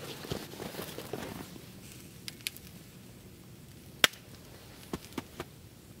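Campfire of burning sticks crackling, with a few sharp pops of the wood, the loudest about four seconds in. A rustling, crunching noise fills the first second and a half.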